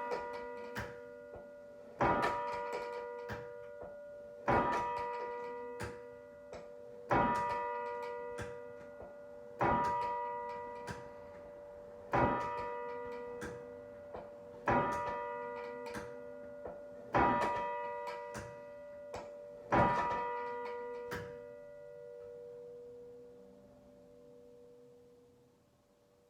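A single church bell tolling a slow knell: eight evenly spaced strikes about every two and a half seconds, each ringing on under the next, with a fainter knock between strikes. The last strike rings out and fades away.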